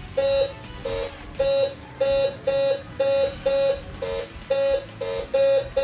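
Bounty Hunter Quick Silver metal detector beeping as an 18-carat gold ring is passed over its search coil: a run of short, mid-pitched tones, about two a second, some a little lower than the rest. It is the detector's target signal for the ring.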